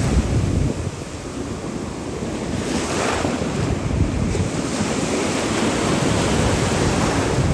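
Ocean surf washing around the microphone, with wind buffeting it.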